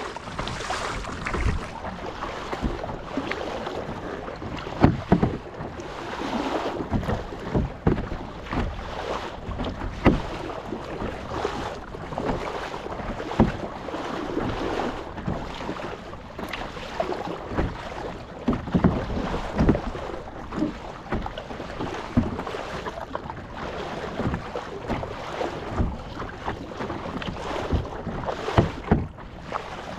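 Kayak paddling at sea: paddle blades splashing in and out of the water in irregular strokes, with water sloshing against the hull and wind buffeting the microphone.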